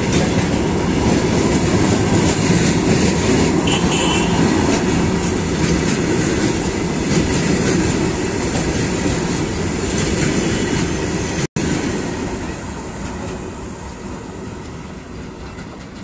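Freight train of hopper wagons rolling past close by, wheels running on the rails. The noise fades steadily over the last few seconds as the final wagons pass and the train pulls away.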